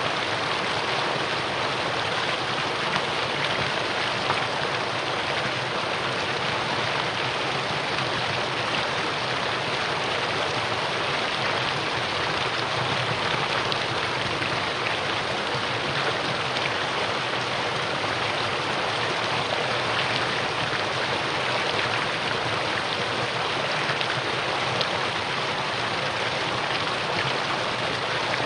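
Mountain valley stream, its water running steadily with an even, unbroken rushing sound.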